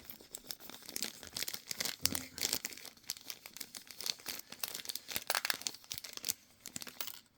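Small metal hardware being rummaged by hand in a spare-parts tin: an irregular run of clicks, clinks and rattles as bolts, washers and screws are stirred and picked through.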